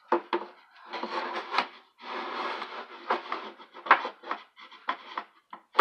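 Wooden shelf panels being handled: boards scraping and sliding against each other, with a few short knocks.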